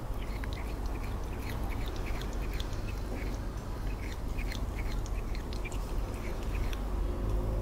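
Cat chewing a blade of grass up close: irregular small crunching clicks, two or three a second, over a steady low rumble.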